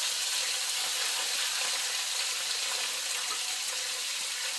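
Chicken thighs frying in shallow hot oil in a skillet: a steady, even sizzle.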